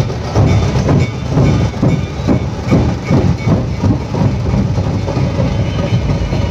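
A dhol-tasha troupe of many large barrel drums (dhols) beating together in a loud, driving rhythm of about three heavy strokes a second.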